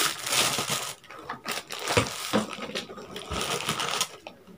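Plastic packaging crinkling and rustling as it is pulled open and handled, densest in the first second, then in scattered softer rustles with a few small knocks that die away near the end.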